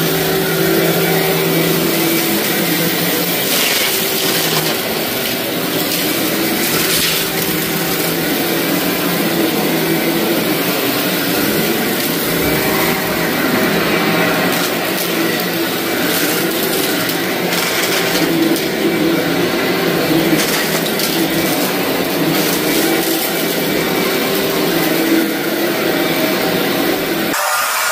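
Vacuum cleaner running steadily over a heavily soiled carpet, with a constant crackling crunch as embedded grit and debris are sucked up.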